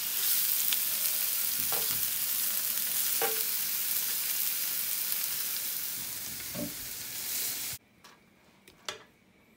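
Black tiger shrimp frying in butter in a pan: a steady high sizzle with a few faint clicks, cutting off suddenly near the end.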